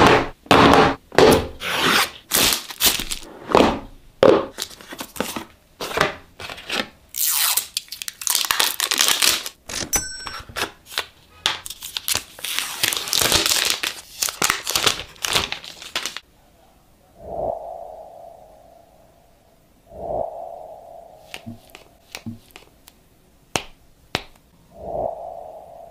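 Packaging for a folding phone being torn open and protective plastic film peeled off and crinkled: many sharp tearing and crinkling strokes in quick succession for about the first two-thirds. Then it goes much quieter, with three soft swishes and a few light clicks as the folding phone is handled and unfolded.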